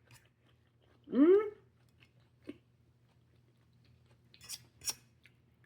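A person eating: a short rising hum of the voice about a second in, then quiet chewing with a few crisp crunches near the end.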